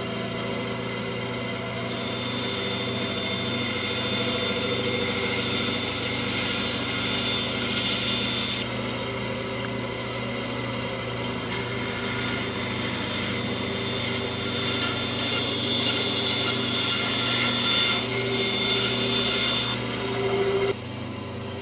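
Band saw running with a steady motor hum, its blade cutting through wood in two passes that add a high hiss. Near the end the sound drops off sharply.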